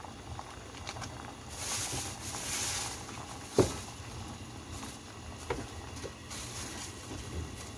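Pot of soy-sauce braise bubbling at a steady boil while green onions are pushed in and stirred with a wooden spoon. A sharp knock about three and a half seconds in and a lighter one later come from the spoon hitting the pot.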